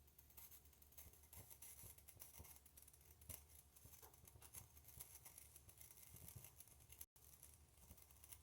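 Very faint hiss with light crackling and ticking from a homemade aluminium-can alcohol stove burning. The sound drops out for an instant about seven seconds in.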